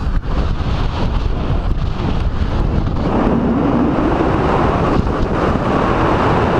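Wind rushing over the microphone of a paraglider's harness-mounted camera in flight: a steady, loud buffeting rush that grows stronger about three seconds in.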